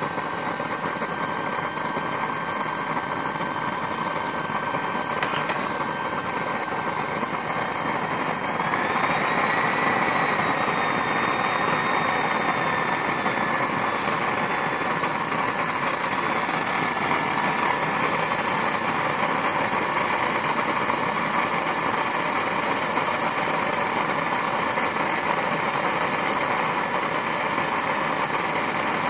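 Homemade used-oil stove burner running with air forced in through its side pipe: a steady rushing roar with a faint whine, getting louder about nine seconds in.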